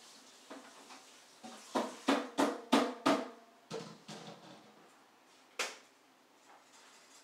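A toddler clapping her hands: a quick run of about five claps, then a few softer ones and one last clap.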